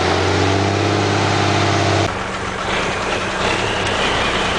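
Semi-truck diesel engine pulling a loaded flatbed trailer, running under throttle with a steady note, then easing off to a quieter idle about two seconds in.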